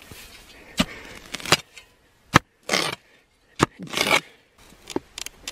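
Metal spade digging into turf and soil: a series of sharp knocks and gritty scrapes as the blade cuts in, spaced about a second apart.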